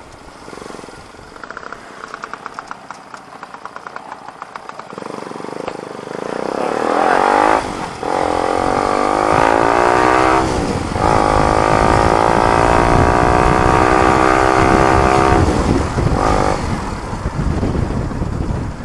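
Motorcycle exhaust through a new muffler: low, evenly pulsing at low revs for the first few seconds, then accelerating through the gears, the pitch climbing within each gear and dipping briefly at three gear changes.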